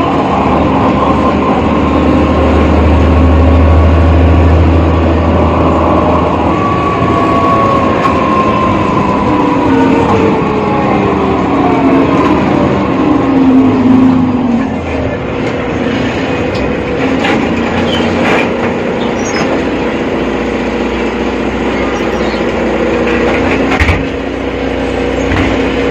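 BredaMenarinibus Avancity Plus city bus with a ZF gearbox running, with a deep rumble and then a whine that slides steadily down in pitch over several seconds as it slows: the strange sound this bus is known for.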